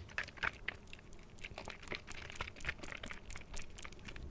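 A bottle of chocolate protein drink being shaken and handled by hand, giving a run of irregular small clicks and rustles, to mix the chocolate that has settled at the bottom.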